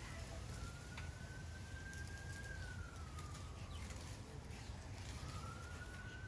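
Emergency-vehicle siren wailing, its pitch slowly rising and falling about every four seconds, over a low steady rumble.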